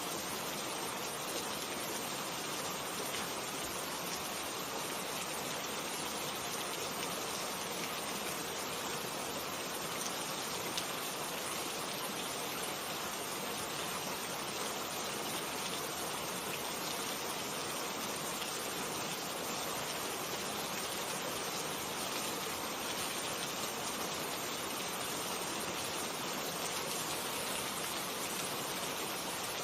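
Steady rainfall, an even hiss with faint scattered drop ticks.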